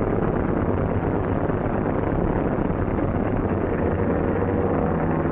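Twin radial piston engines of a Douglas C-47 transport plane droning steadily.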